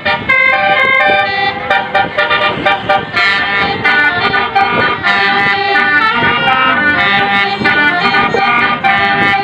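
Basuri telolet multi-tone air horn on a tour bus playing a quick melody, its notes changing every fraction of a second, with short clicks between them.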